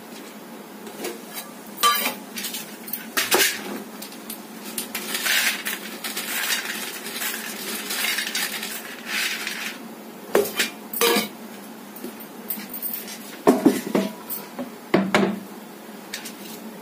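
Stainless-steel plates and a bowl clinking and scraping against each other while dry fusilli pasta rattles as it is scooped and poured between them. There is a stretch of rustling in the middle, and a cluster of sharp clinks near the end.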